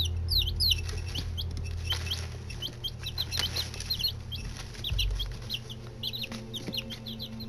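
A group of nine-day-old chicks peeping: many short, high chirps overlapping, each sliding up or down in pitch.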